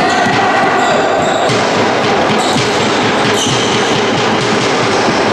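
Loud, echoing din of a handball match in a sports hall: spectators' voices and cheering blend with held tones, over the thud of the ball and players' feet on the court.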